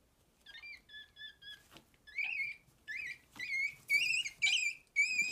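Baby monkey giving a run of short, high-pitched squealing calls, each wavering in pitch, about two a second, starting about half a second in and growing louder. They are fear calls from a frightened baby monkey.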